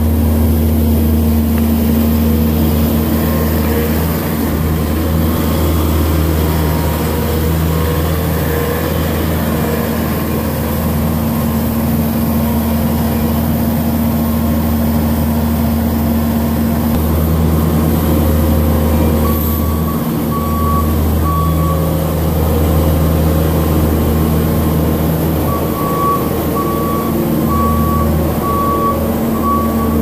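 Bobcat S770 skid-steer loader's diesel engine running steadily as the machine moves hay bales. Its backup alarm beeps in a short run about two-thirds of the way through, then again steadily near the end, about one and a half beeps a second.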